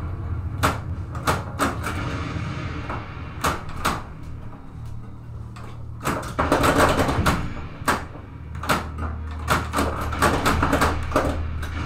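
Stern Lightning pinball machine in play: irregular sharp clacks from flippers, ball and playfield targets, over a steady low hum.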